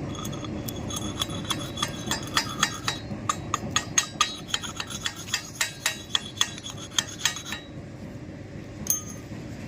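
Rapid metallic taps of a chipping hammer on the freshly stick-welded steel flange-to-pipe joint, the metal ringing with each strike: slag being knocked off the E6013 weld bead. About three to four taps a second, stopping near the end, with one last tap shortly after.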